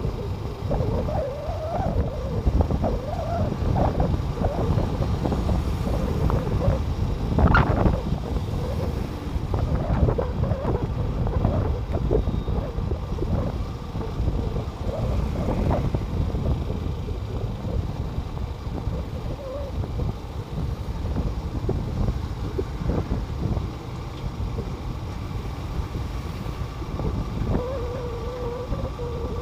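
Wind buffeting the microphone over the low rumble of a vehicle travelling along a highway, with one brief sharp noise about seven seconds in.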